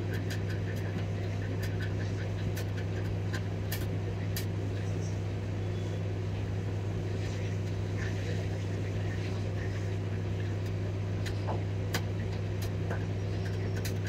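Light scratching and ticking of a pointed tool scraping corrosion off copper traces on a laptop motherboard, in scattered irregular strokes over a steady low hum.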